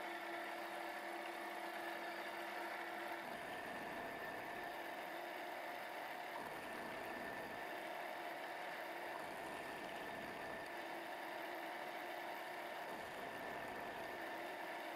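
X3 milling machine running steadily with a whir as a small gear cutter cuts teeth in a mild steel gear blank; its tone changes about three seconds in.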